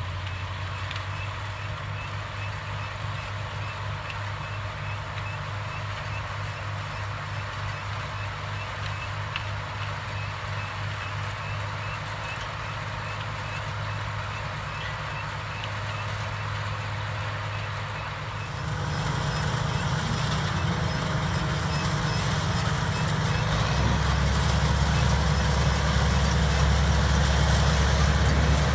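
Diesel engines of tomato-harvesting machinery, the harvester and the tractor hauling its trailer, running with a steady low drone. The drone grows louder about two-thirds of the way in as a machine comes closer. Faint regular high beeps sound over it.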